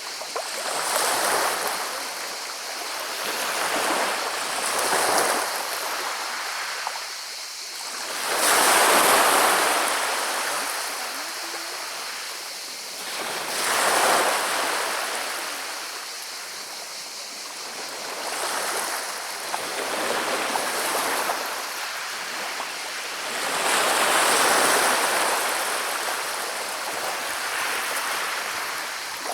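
Sea waves breaking on a shingle beach, each swell rushing up and drawing back and rolling the pebbles with a hissing rattle, about every four to five seconds.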